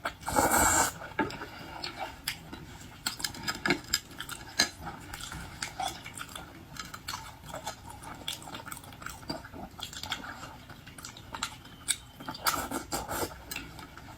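Eating sounds from a seafood meal: scattered sharp clicks and clatter of utensils and shells against dishes, with chewing. Two longer, louder noisy bursts come shortly after the start and again near the end.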